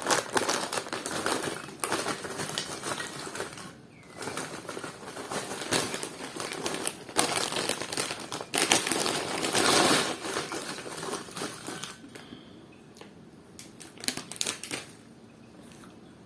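Small plastic mayonnaise sachet crinkling and crackling as it is squeezed and worked at to tear it open, a sachet that is hard to open with greasy fingers. The crackling is dense for about twelve seconds, then dies down to a few scattered faint crackles.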